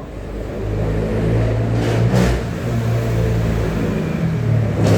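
An engine running steadily, growing a little louder in the first second, with two short noises about two and five seconds in.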